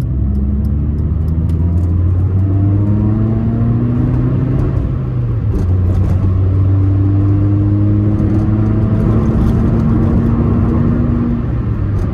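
Nissan Micra K11's four-cylinder petrol engine pulling under acceleration, its pitch rising steadily. The pitch drops at a gear change about five and a half seconds in, then climbs again in the next gear, over steady road noise.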